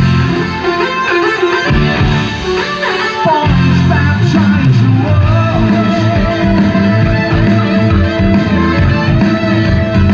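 A live prog-rock band playing through a large PA, with electric guitar to the fore. Bass and drums come in fuller about three and a half seconds in.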